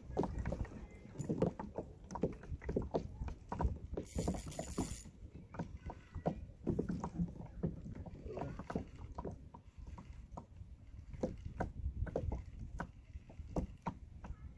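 Water lapping and slapping against a fishing kayak's hull, with irregular small knocks over a steady low rumble and a short hiss about four seconds in.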